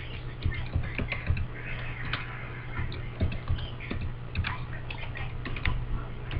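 Computer keyboard being typed on, with irregular key clicks a few times a second, over a steady low hum.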